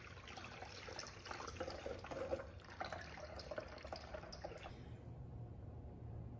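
Water and concentrated antifreeze poured from plastic jugs into a plastic funnel, filling the engine's cooling system with coolant. The faint pouring and splashing stops about five seconds in.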